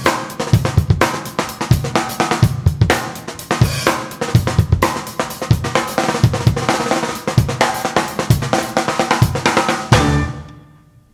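Opening theme music driven by a drum kit, with snare, bass drum, hi-hat and cymbals, fading out about ten seconds in.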